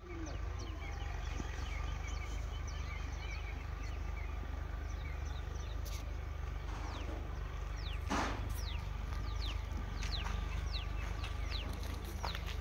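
Outdoor birdsong: many short chirps that sweep down in pitch, scattered irregularly, over a steady low rumble. About eight seconds in there is one brief louder swell.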